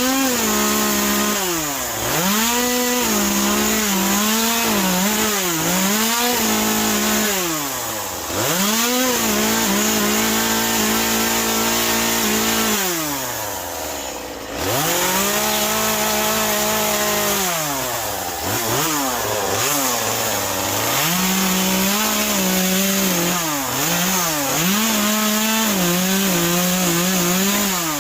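Chainsaw cutting into a wet western red cedar stump for carving. The throttle is repeatedly opened and eased so that the engine pitch rises and falls, and it drops back toward idle twice, around 8 and 13 seconds in, before revving up again.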